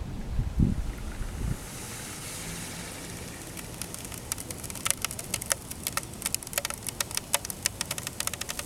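Plastic water bottle sealed with dry ice, crackling with sharp irregular clicks that come more and more often as the carbon dioxide pressure stretches it toward bursting. A high hiss comes in before the clicks. Wind rumbles on the microphone during the first second or so.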